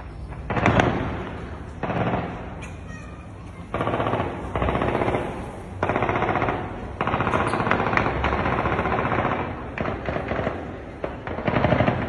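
Bursts of heavy-calibre automatic gunfire, about eight sustained bursts of rapid shots with short gaps between them; the longest runs about two and a half seconds, some seven seconds in.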